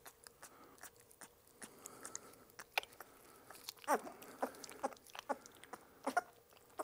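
A two-week-old Belgian Malinois puppy smacking and licking at an oral syringe as liquid dewormer is squeezed into its mouth: faint, quick wet clicks, with a couple of brief squeaks about four and six seconds in.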